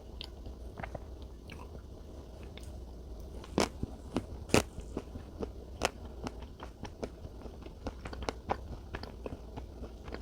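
Close-miked chewing of salted caramel chocolate cake: a run of irregular sharp mouth clicks, with two louder ones about three and a half and four and a half seconds in.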